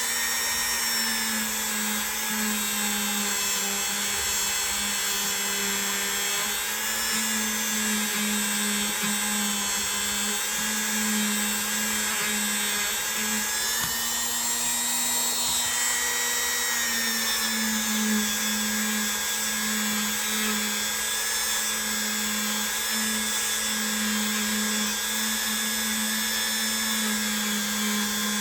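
A small electric power tool spinning a polishing pad against the metal of a pocket knife's blade and bolsters. It gives a steady motor whine that dips slightly in pitch a couple of times.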